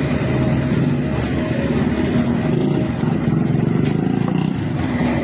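An engine running steadily at a constant speed, with a fast, even low pulsing.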